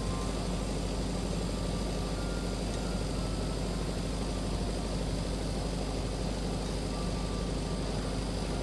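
Welding on a stainless steel flange: a steady hiss and hum from the arc and welding machine, unbroken and even.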